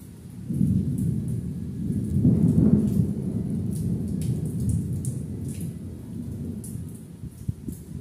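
A thunder rumble that swells about half a second in, is loudest around two to three seconds, then slowly dies away, over rain pattering and dripping on a wet concrete floor and puddle.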